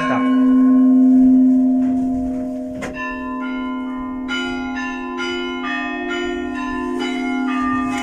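Church bells ringing close by. A big bell's deep hum rings on throughout, and from about three seconds in smaller bells are struck in a quick, rhythmic pattern over it.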